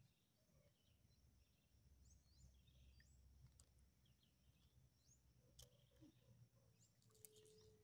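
Near silence: faint outdoor ambience with a few soft, high bird chirps.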